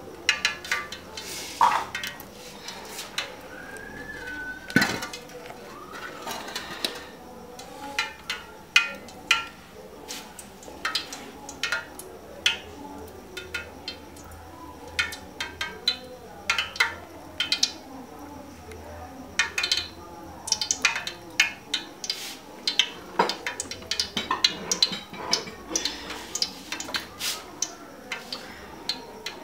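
Cooking oil heating in an aluminium pot on a stove, crackling with many sharp, irregular pops.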